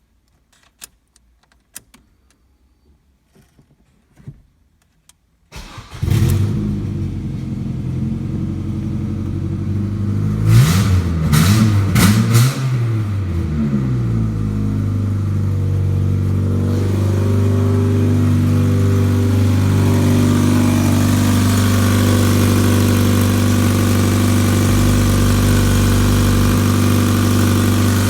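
Ford Focus 1.6-litre petrol four-cylinder engine (FYDB) starting with a sudden catch about six seconds in. It is revved several times, then settles into a steady idle.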